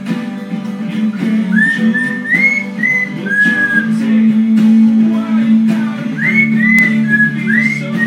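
Lilac-crowned Amazon parrot whistling a string of clear, upward-gliding notes along with an acoustic guitar song. The whistles come in two runs, one in the first half and another near the end.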